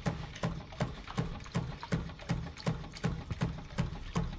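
Quarter-scale Rider-Ericsson hot air pumping engine running on propane, its mechanism knocking in a steady, even rhythm of about three beats a second over a low hum. It is running a little faster than the owner likes.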